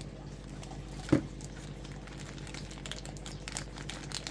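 Beyblade packaging being opened by hand: light crinkling and small clicks, with one sharper knock about a second in.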